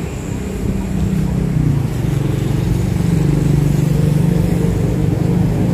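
Street traffic: the low, steady hum of a motor vehicle's engine on the road, growing louder from about two seconds in as it nears.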